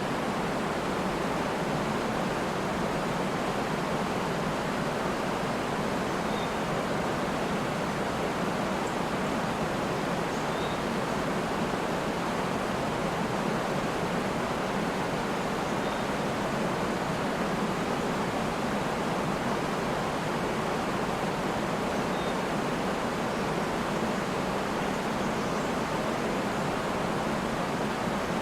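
Waterfall: a steady, unbroken rush of falling water, even and unchanging throughout.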